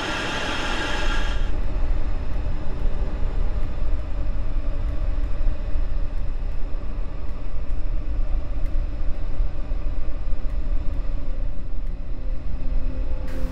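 A low, steady rumbling drone of a horror-film soundtrack. In the first second and a half a brighter, hissing swell rides over it and then falls away.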